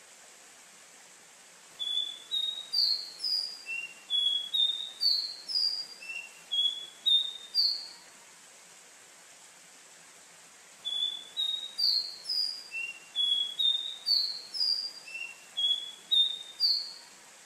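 Caboclinho, a Sporophila seedeater, singing: two song phrases of about six seconds each, every phrase a quick run of about a dozen clear whistled notes. The phrases are three seconds apart, over a faint steady hiss.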